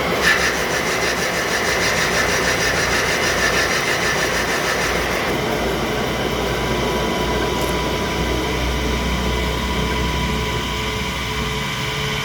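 Machine running steadily with a mix of steady tones and rough grinding noise, with a single sharp knock just after the start.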